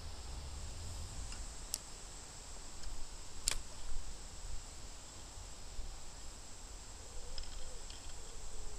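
Outdoor bankside ambience: wind rumbling on the microphone under a steady high insect trill, with two sharp clicks, one about two seconds in and a louder one about three and a half seconds in.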